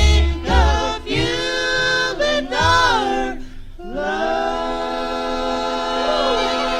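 Bluegrass band's close three-part vocal harmony singing the song's final line, then holding one long last chord from about four seconds in; a string bass is heard under the first second.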